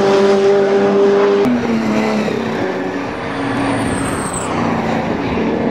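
Racing car engines running at high revs as cars pass on the circuit, a strong steady engine note that changes abruptly about a second and a half in.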